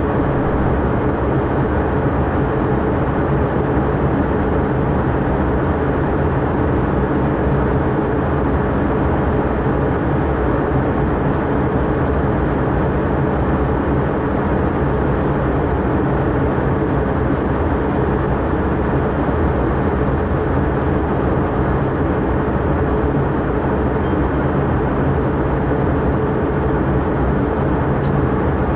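Steady cabin noise inside a McDonnell Douglas MD-83 airliner in flight: an even roar of air rushing past the fuselage, with a low drone from its tail-mounted jet engines, heard from a forward seat.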